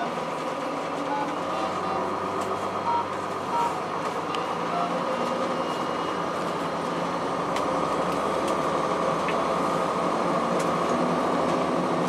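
Cabin sound of a 2002 Blue Bird CS transit bus underway, its Cummins ISC inline-six diesel running steadily, with a few short electronic beeps in the first five seconds. The engine sound grows a little louder about halfway through.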